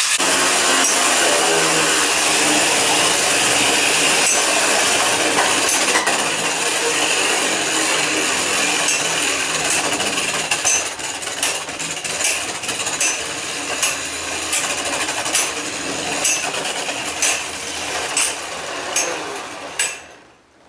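Spinner M.A.D spinning tops whirring in the arena, with sharp clicks as they knock together. The whir starts fading about halfway through, the clicks grow more frequent, and it dies away just before the end as the tops run down.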